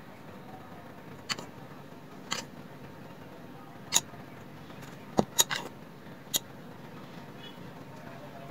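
Hands folding a samosa pastry sheet: a handful of short, sharp clicks and taps at irregular times, the loudest about four and five seconds in, over a steady low background hum.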